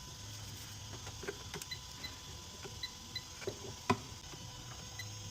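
Light handling noises while the car's wiring is being checked: scattered small clicks and knocks, with one sharper click about four seconds in, and a few faint, short high pips.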